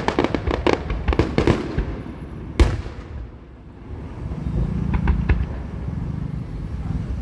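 Fireworks going off: a rapid volley of sharp crackling bursts, then one loud bang about two and a half seconds in. After a short lull comes a low rumble with a few scattered pops.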